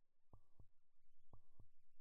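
Faint heartbeat sound effect: a steady lub-dub double thump once a second, the two beats about a quarter second apart.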